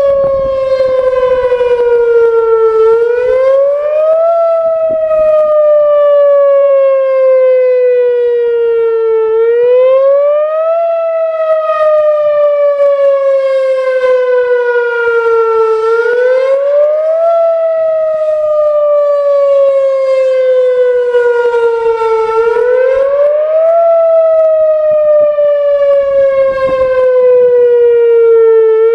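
Whelen Vortex R-4 outdoor tornado siren sounding its fast wail as a drill test of the tornado warning signal. The pitch rises quickly for about a second and a half, then slides slowly down for about five seconds, and this repeats about every six and a half seconds.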